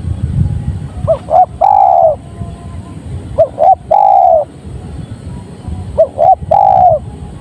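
Spotted dove (tekukur) cooing: three phrases about two and a half seconds apart, each two short notes followed by a longer coo that falls at the end. A steady low rumble runs underneath.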